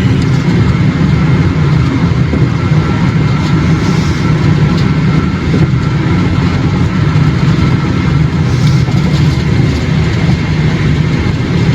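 Steady, loud low rumble of a car cruising at highway speed, heard from inside the cabin: engine, tyre and wind noise with no change in pace.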